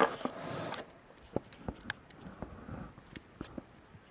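Laptop packaging being handled: a short rustling scrape at the start, then a string of light clicks and taps.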